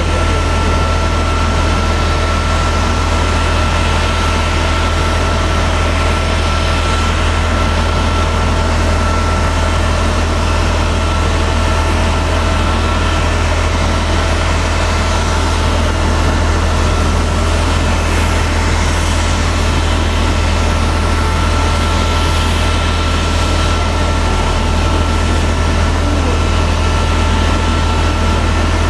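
Steady, unchanging drone from a jet airliner standing at the gate: several held whining tones over a strong low hum.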